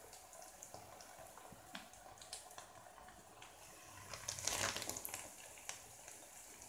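Onion pakoda batter sizzling and crackling as it deep-fries in a kadai of hot oil. A little past four seconds in the sizzle grows louder as another handful of batter is dropped into the oil.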